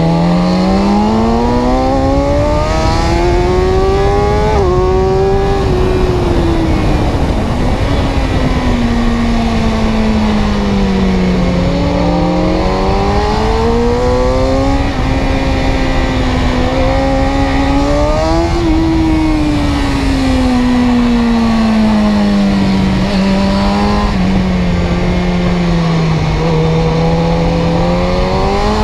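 Car engine running under load, its note rising and falling slowly several times as the car speeds up and slows down, over a steady heavy rumble.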